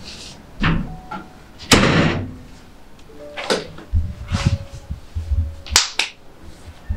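A house door being opened and handled: several sudden knocks and clatters, the loudest about two seconds in, with thumps later on as someone steps out through it.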